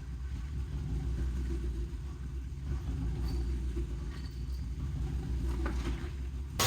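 BMW X5's newly fitted replacement engine idling, a steady low rumble, with a couple of faint clicks near the end.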